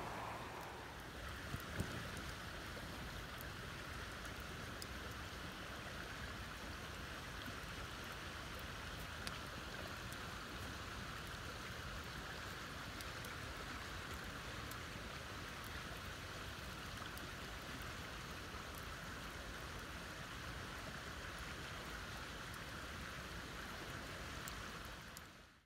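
Wood campfire burning: scattered small crackles and a couple of sharper pops over a steady rushing hiss, fading out at the very end.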